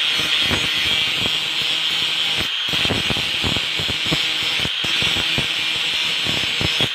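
Angle grinder running with its disc pressed against a steel machete blade, grinding the metal: a steady high-pitched running sound with an uneven rasp as the disc bites the steel.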